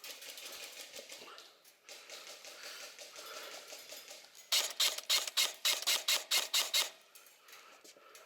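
Faint rustling and clatter, then about halfway through an airsoft gun fires a rapid string of about a dozen sharp shots, roughly five a second, lasting a little over two seconds.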